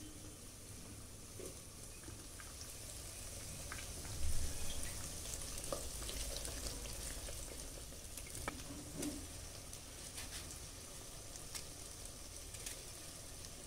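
Onions and potato pieces frying in a clay pot, a steady sizzle, with a wooden spatula stirring and knocking against the pot and small clicks as pieces drop in. The loudest knock comes about four seconds in.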